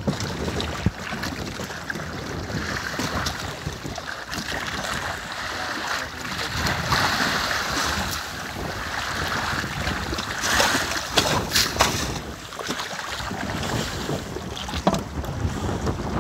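Wind buffeting the microphone over the rush and slosh of sea water along the hull of a small sailing fishing boat at sea, with a few sharp, louder noises about two-thirds of the way through.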